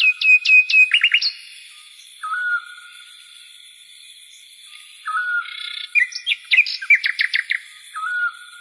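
Songbirds chirping and singing: short held whistles and quick falling chirps and trills, in a burst at the start and another from about five seconds in.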